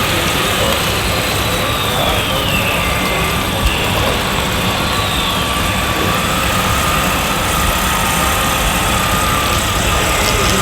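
Radio-controlled construction machines running with a steady diesel-engine sound, with two short high whines falling in pitch partway through.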